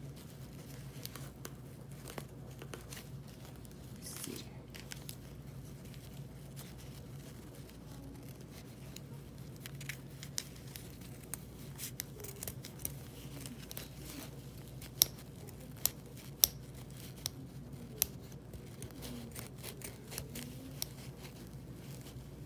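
Scissors snipping through cloth, the blades clicking shut again and again, with the rustle of the fabric being handled. A few sharper snaps come past the middle.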